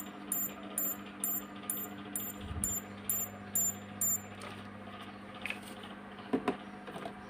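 CRT television's power supply ticking in protection shutdown, about two faint high ticks a second over a steady low hum; the ticking stops about four seconds in. The 'lock-up' is the sign of a short in the line-output stage, which the technician traces to the line output transistor.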